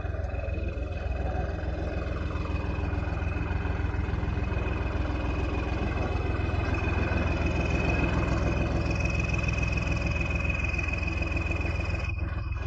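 Heavy diesel engine running steadily, with a steady high-pitched whine over the engine note.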